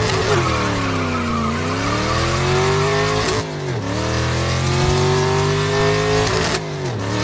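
Race car engine revving hard. Its pitch dips, then climbs steadily, drops sharply about three and a half seconds in as if changing gear, climbs again and drops once more near the end.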